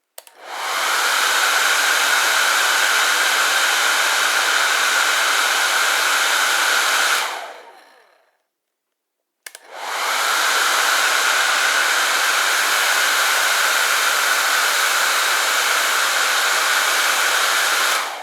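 Hair dryer switched on with a click, spinning up to a steady rushing blow with a whine in it, then switched off and winding down. After about a second of silence it clicks on again and runs steadily, starting to wind down at the very end.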